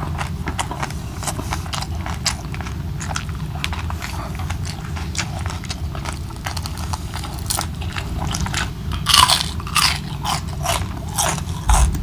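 Close-miked chewing and biting of crispy fried boneless daing na bangus (vinegar-marinated milkfish), a run of small crunches and clicks. Louder, sharper crunches come about nine seconds in and again near the end.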